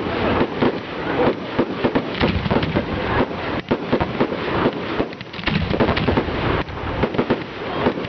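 Fireworks display: a dense, unbroken string of rapid bangs and crackle, many shells and effects going off in quick succession.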